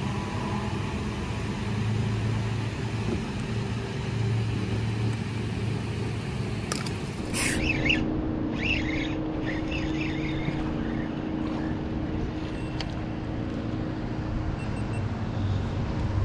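A steady low mechanical rumble and hum, with a short sharp click about seven seconds in.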